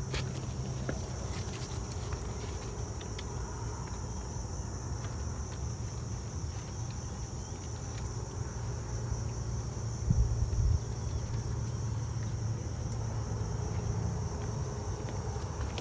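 Insects chirring in a steady, high-pitched chorus over a low rumble, with a brief thump about ten seconds in.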